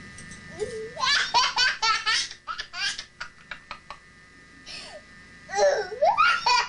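A toddler girl laughing in high-pitched runs of giggles: one run about a second in, a shorter one near the middle, and another near the end.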